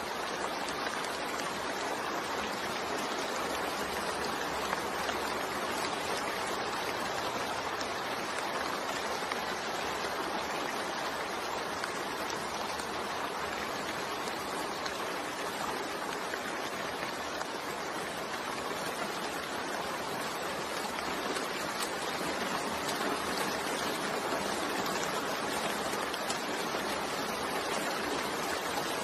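Steady rain falling, a continuous even hiss without breaks or thunder.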